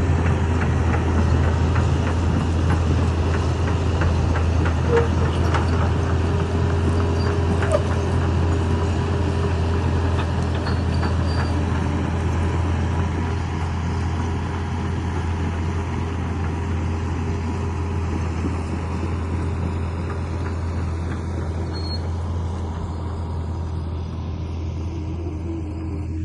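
Hitachi hydraulic excavator's diesel engine running steadily with a deep drone, with scattered knocks in the first half. It grows slowly quieter toward the end.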